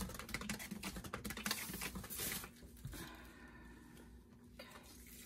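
Canvas spinner being spun by hand, giving a rapid, dense clicking and pattering that thins out after about two and a half seconds as the spin slows.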